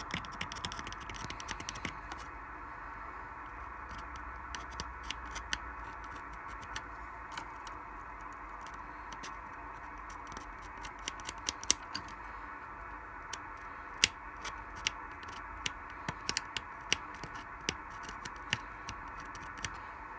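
Scattered, irregular sharp clicks and taps over a steady background hiss.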